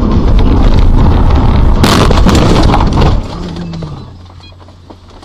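Car collision heard from inside the dashcam car. Loud rumbling road noise is cut through about two seconds in by a sudden crash of impact and breaking glass and plastic lasting about a second. Then the noise drops away to a low hum.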